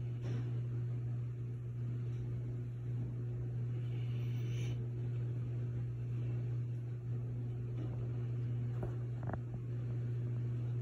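Steady low hum with a faint hiss, no voices; a faint tap about nine seconds in.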